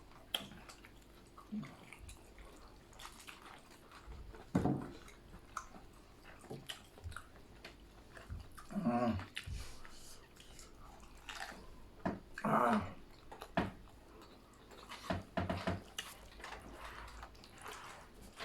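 Close-up eating sounds from people chewing grilled chicken: wet chewing and lip-smacking clicks, with a couple of brief vocal sounds in the middle.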